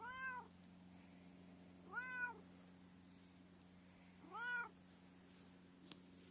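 Domestic cat meowing three times, about two seconds apart, each meow rising and then falling in pitch.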